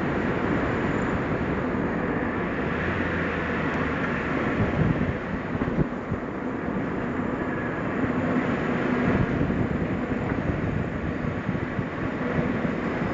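New-model Suzuki Jimny driving down a winding mountain road: steady engine and tyre rumble, with a few knocks from bumps about five seconds in.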